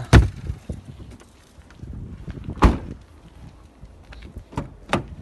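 Knocks from the body of a 2016 Hyundai Tucson as its boot and a rear door are shut and opened: a hard thump just after the start, another about two and a half seconds in, then two lighter knocks near the end.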